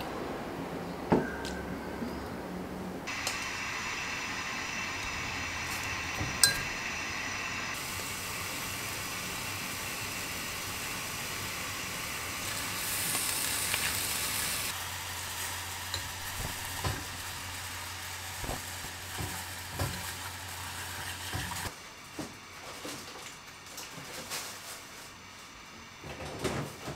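A couple of sharp clinks of a mug and cutlery at a plate. Then a long, steady frying sizzle as onion, garlic and kimchi cook in a Korean earthenware pot (ttukbaegi), giving way to quieter cooking with scattered small taps and clinks.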